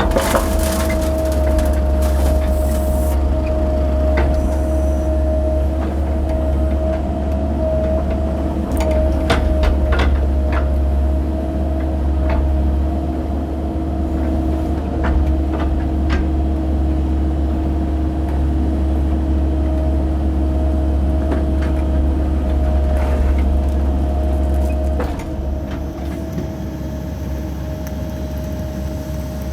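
Mini excavator's diesel engine running under load with a steady hydraulic whine, broken by scattered clanks and knocks as the machine works gravel. About 25 seconds in it eases off and runs a little quieter.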